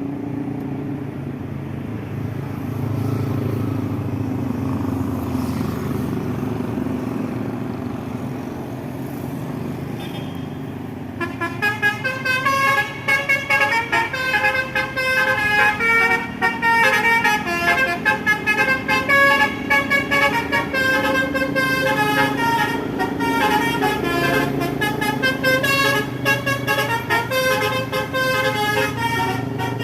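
A bus engine runs steadily. From about eleven seconds in, a basuri multi-tone horn plays a fast melody of short toots whose notes change pitch many times a second, and it keeps playing to the end.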